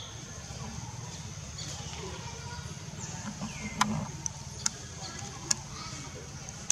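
Dry leaf litter and twigs crackling as a long-tailed macaque forages, with a few sharp clicks about halfway through. A steady high whine and occasional short chirps run in the background.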